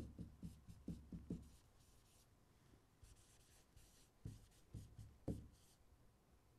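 Faint tapping and scratching of a stylus writing on an interactive whiteboard's screen: a run of short strokes at the start, a pause, then more strokes a little past the middle.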